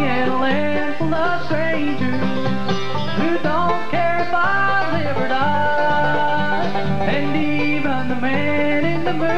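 Bluegrass band playing an instrumental break between sung verses: a plucked acoustic string lead line over rhythm guitar and a steady plucked bass.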